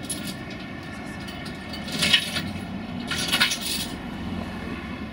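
Steady low machinery rumble with two short, bright metallic scrapes, about two seconds in and again around three and a half seconds in, as the tram is moved down off the transport trailer.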